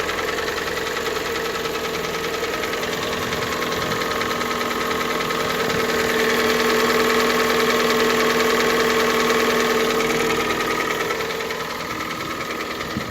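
Hyundai/Kia G4NA 2.0-litre four-cylinder petrol engine idling cold with a steady, rapid knocking from the engine: the cold knock typical of this engine before it warms up.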